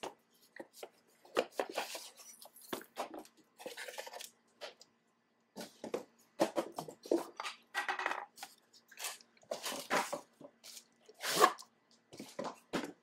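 Plastic packaging rustling and crinkling as bike rack parts are unwrapped, with irregular clicks and knocks of metal and plastic parts being handled and set down on a concrete floor.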